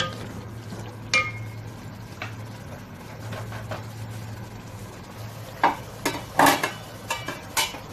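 Wooden spatula stirring chicken masala frying in oil in an aluminium pot, scraping and knocking against the pot's sides. The knocks are scattered, one about a second in rings briefly, and a cluster of louder knocks comes near the end, over a steady low hum.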